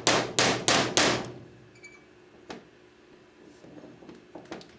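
Hammer striking a steel pin punch four times in quick succession, about three blows a second, driving a pin out of a revolver frame. Each blow is a sharp metal-on-metal knock. A single lighter knock comes about two and a half seconds in, and a few faint taps near the end.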